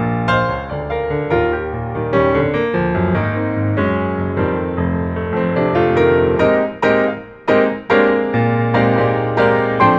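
Background piano music: a steady flowing melody over held chords, with two brief breaks about seven and a half seconds in.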